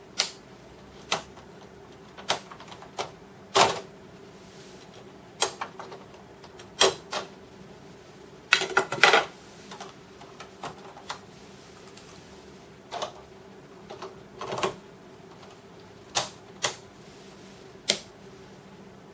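Irregular sharp clicks and knocks of fluorescent tubes and their plastic lampholder fittings being handled while a tube is swapped in a light fixture, with switch clicks, over a steady low hum.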